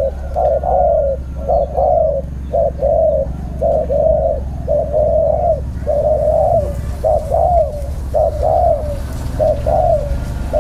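Caged spotted dove cooing over and over, phrase after phrase with short gaps.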